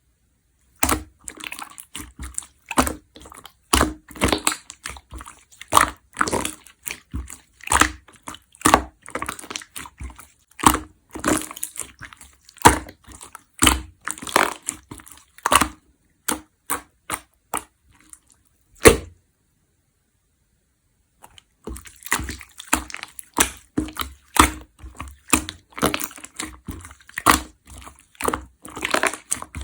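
Clear slime being squeezed and pressed by hand, giving sharp wet pops and clicks as trapped air bubbles burst, several a second. It stops for about two seconds past the middle, then starts again.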